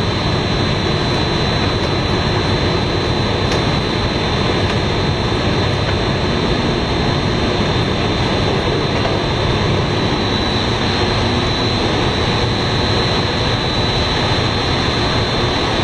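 Snack-extruder production-line machinery running: a loud, steady mechanical noise with a faint high whine that never changes.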